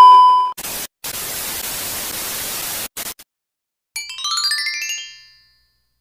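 Edited 'no signal' transition effect: a loud, steady test-tone beep that cuts off about half a second in, then TV static hiss in three bursts over the next two and a half seconds. About four seconds in comes a short sweep of rising chime-like tones.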